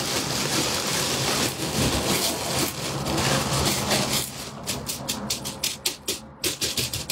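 Clear plastic bag crinkling as it is squeezed and turned in the hands: a dense rustle for the first four seconds, then a run of separate sharp crackles.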